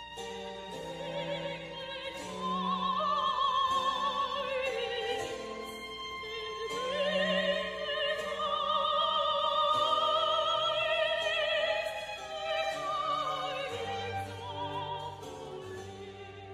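Background music: operatic singing, a high voice with wide vibrato over sustained orchestral notes, swelling loudest through the middle.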